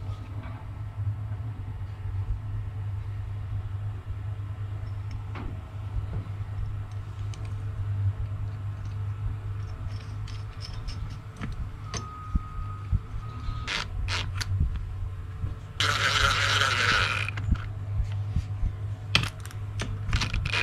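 Hand tools clinking and scraping on metal as a thread tap is run through the remaining damaged bolt holes of a small engine to chase the threads, with scattered sharp clicks over a steady low hum. About sixteen seconds in comes a louder burst of noise lasting about a second and a half.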